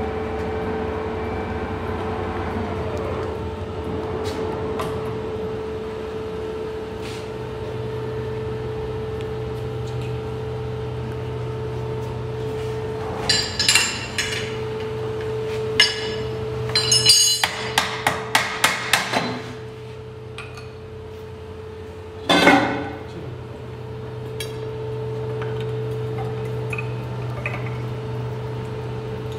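Lathe running with a steady hum while a forklift torque converter turns in its chuck to be cut open. Around the middle comes a quick run of sharp metallic knocks, with one louder clank a few seconds later.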